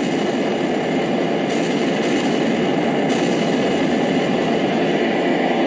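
Steady, loud rumbling noise that runs on without breaks, strokes or a beat.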